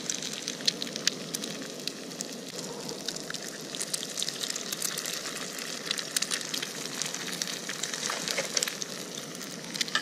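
Eggs, bacon and sweet potato hash browns sizzling in a frying pan on a small gas camp stove: a steady hiss with many scattered small pops and crackles.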